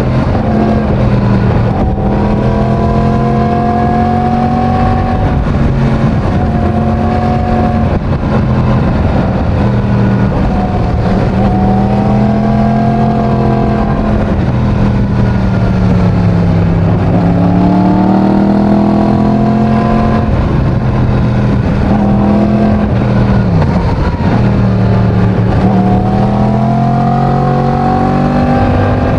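Yamaha MT-10's crossplane inline-four on its stock exhaust, running under way. Its pitch rises and falls several times as the throttle is opened and closed, with a brief sharp drop about three-quarters of the way through.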